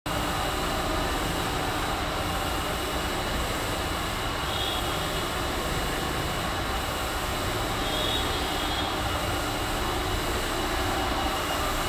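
Electric-motor-driven horizontal mixer-blender running, its motor, V-belt and gearbox making a steady mechanical drone with a faint high whine over it.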